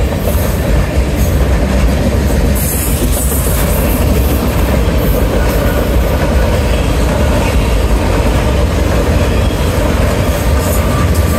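Norfolk Southern freight train's covered hopper cars rolling past close by: a loud, steady rumble of steel wheels on the rails with clattering from the wheels and cars.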